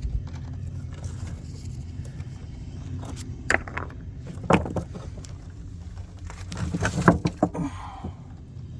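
Rocks knocking and scraping as an old rock-filled sump is dug out by hand: a few sharp knocks, the busiest cluster about seven seconds in, over a steady low rumble.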